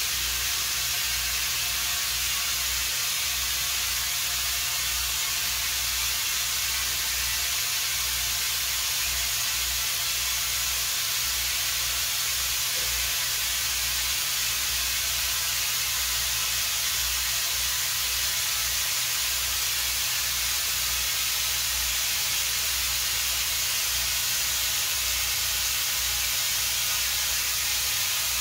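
Compressed air hissing steadily through an air line into an exercise ball as it inflates, with a low uneven rumble underneath.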